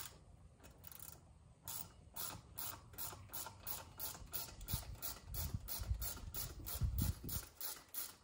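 Hand ratchet with a 10 mm deep socket clicking in a steady run of about four clicks a second as it is worked back and forth, loosening the intake's fasteners. Some low thuds come in around the middle.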